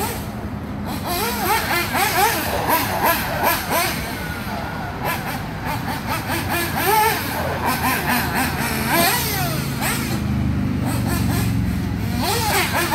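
Small nitro engine of a 1/8-scale MBX6R RC buggy revving up and down over and over as it is driven, its pitch rising and falling about once a second.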